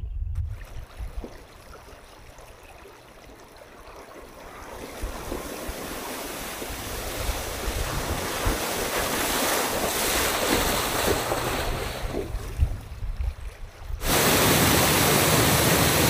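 Shallow stream water rushing over stones while a Toyota FJ Cruiser drives through it, the splashing swelling as the SUV approaches and passes. Wind rumbles on the microphone throughout. About two seconds before the end, the sound switches abruptly to a louder, steady rush of a small waterfall.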